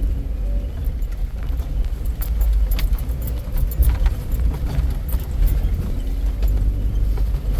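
Off-road vehicle crawling over a rough trail: a steady low rumble with scattered rattles and knocks from the body and suspension.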